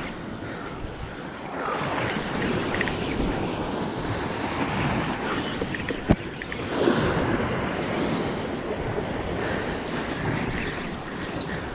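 Sea waves surging and washing against the rocks below, with wind buffeting the microphone. A single sharp click comes about six seconds in.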